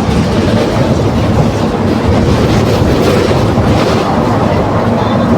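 Volksbus 17.230 OD bus running under way: steady, unbroken engine and drivetrain noise, with the differential growling.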